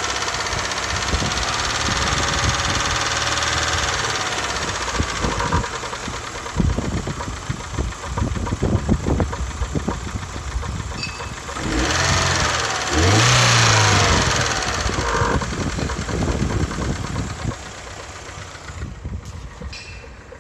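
Car engine running with a knock, brief rise in revs about twelve seconds in, then dying down near the end.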